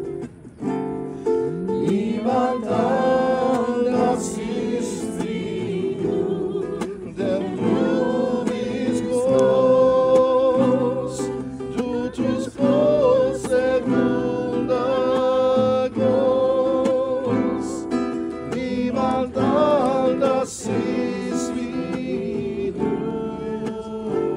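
Worship song: voices singing with wavering, sustained notes over strummed and plucked acoustic guitar.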